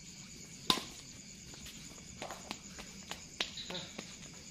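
Sharp racket strikes on a shuttlecock and shoe steps during a badminton rally, a hard crack about a second in and several lighter hits and steps after it, over the steady chirring of crickets.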